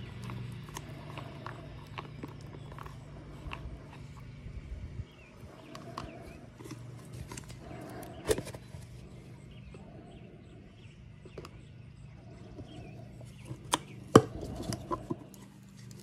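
Wooden stir stick scraping and tapping in a small plastic cup while thickened epoxy is mixed, and a plastic filler canister being handled: scattered light clicks, with two sharper knocks about 8 and 14 seconds in.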